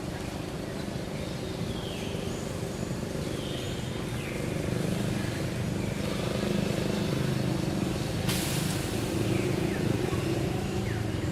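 A motor vehicle's engine running steadily, growing louder about halfway through. Short high falling chirps come and go over it, and a brief hiss sounds near the end.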